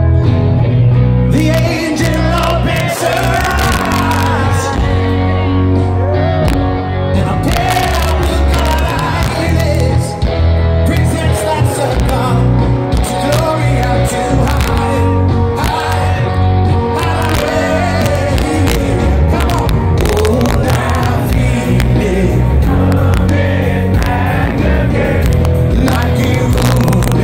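Rock band playing live in a stadium, heard from the crowd: a male lead singer over electric guitars, bass and drums, with a heavy, booming low end.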